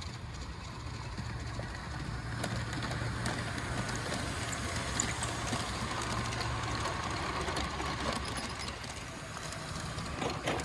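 G-scale garden train running on its track: a steady motor hum with wheel and rail noise, a little louder in the middle as it passes and easing off near the end.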